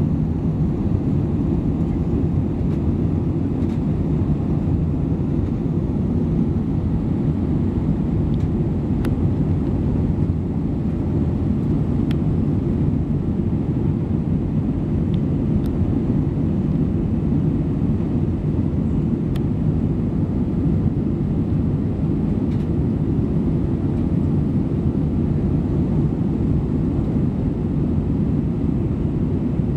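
Steady airliner cabin noise during the climb after takeoff: an even, low rumble of the jet engines and rushing air heard inside the cabin.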